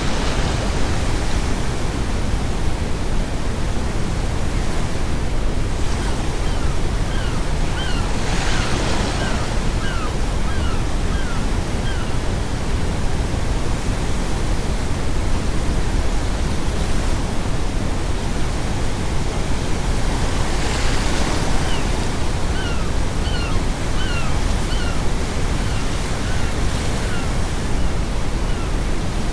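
Ocean waves breaking over a steady bed of brown noise, with three surges: near the start, about a third of the way in, and about two-thirds of the way in. Seagulls call in two runs of quick, short, falling notes, one before the middle and one in the second half.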